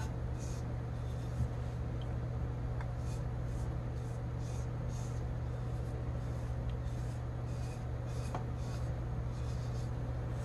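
Steady low hum of an electric cup turner's small motor rotating a tumbler, with faint soft rubbing as a gloved hand spreads wet top coat over the turning cup.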